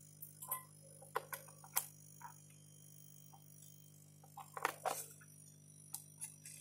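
Scattered light clicks and taps of a DDR1 RAM module being handled and seated in a motherboard memory slot, a cluster around a second in and another near five seconds, over a faint steady hum.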